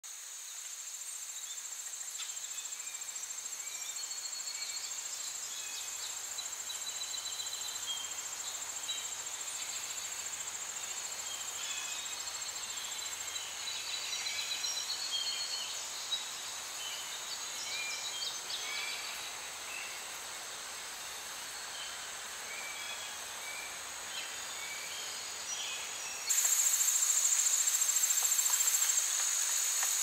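Forest ambience of insects chirring in a steady high drone, with scattered short chirps over it. About 26 seconds in, the insect sound suddenly becomes louder.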